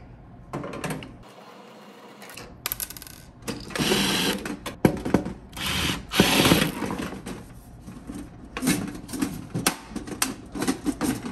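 Ryobi 18V cordless impact driver backing screws out of a toaster oven's sheet-metal case, in two loud bursts of about a second each, a few seconds in. Near the end, a string of light knocks and rattles as the metal casing is handled.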